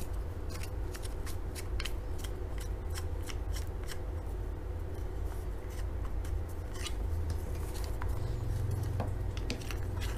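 Irregular small clicks and taps as parts of a cell phone stand are handled and fitted together during assembly, over a steady low hum.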